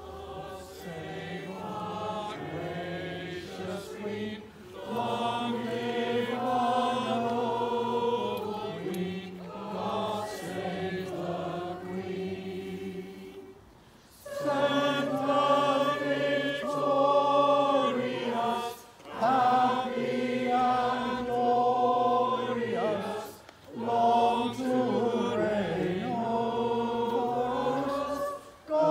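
Church choir singing a slow sacred piece, phrase by phrase, with short breaks between phrases.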